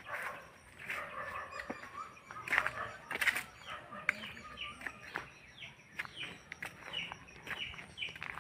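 Chickens clucking and calling, many short calls in quick irregular succession, with a few footsteps on the path.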